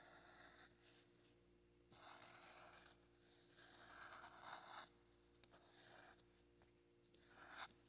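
Black marker pen drawn across paper in about five separate strokes, each a faint scratchy rasp lasting up to about a second, with short pauses between them.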